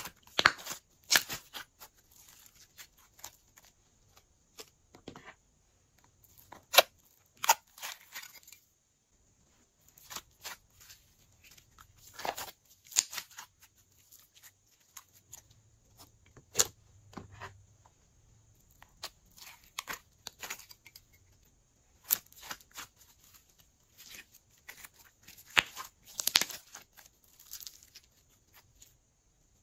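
Hands squeezing, kneading and stretching glossy slime, giving bunches of sharp sticky pops and clicks with short quiet gaps between.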